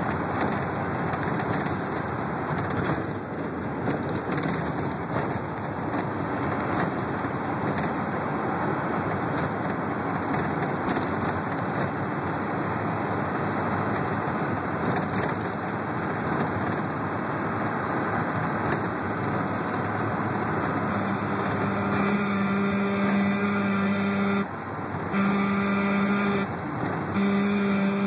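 Interior ride noise of a moving transit bus: steady engine and road rumble. About three-quarters of the way through, a horn starts sounding one steady note in long blasts, breaking off briefly twice.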